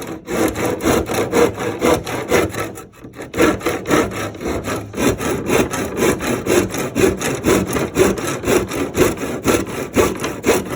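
Hand saw cutting into wood in steady back-and-forth strokes, easing off briefly about three seconds in before carrying on.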